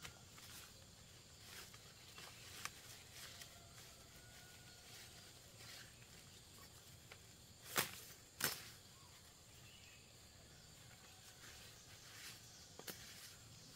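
Knife blade chopping into soil and plant roots: two sharp strikes about half a second apart near the middle, with a few lighter taps and rustles of leaves around them.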